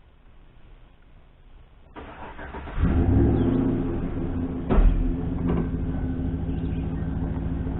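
Truck engine cranking briefly and catching about two seconds in, then idling steadily, with one thump a couple of seconds after it starts.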